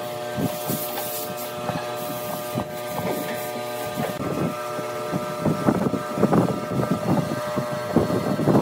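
Screws being twisted into a wooden board with locking pliers: uneven creaks and clicks that come thickest and loudest in the last few seconds. A steady mechanical drone runs underneath.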